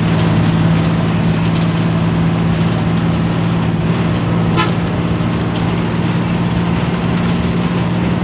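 Bus engine running steadily at speed, heard from inside the cab over road noise, with a brief horn toot about halfway through.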